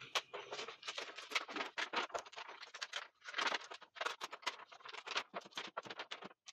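Thin sheet from an LED TV's backlight assembly being peeled up off double-sided sticky tape and handled, crackling and snapping in quick irregular bursts.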